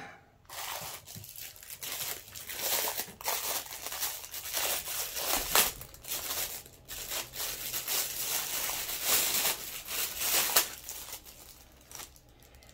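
Plastic packaging crinkling and rustling as it is handled, in a long run of irregular crackles that stops a couple of seconds before the end.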